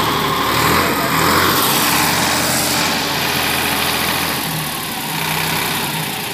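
Tractor diesel engine running steadily, powering a tractor-mounted hydraulic crane that holds a concrete electric pole.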